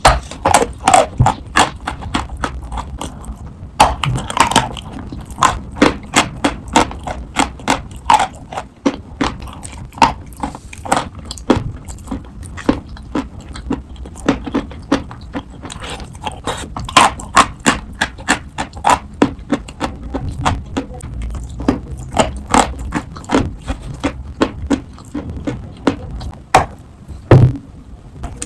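Close-up crunching of a sawn block of eating chalk coated in chalk paste being bitten and chewed: a steady run of sharp, crisp crunches, about two or three a second.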